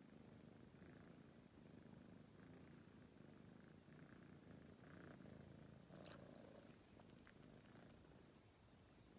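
Tabby kitten purring softly while dozing, a steady low purr that tapers off near the end, with a small click about six seconds in.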